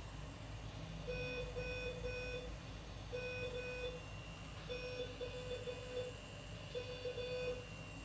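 Hospital medical-equipment alarm beeping in the NICU: short mid-pitched beeps in groups of two or three, repeating about every one and a half seconds. A faint steady high tone sounds from about halfway.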